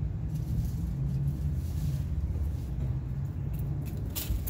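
Steady low rumble of nearby motor traffic and engines. Near the end come a few sharp metallic clinks, like parts being handled.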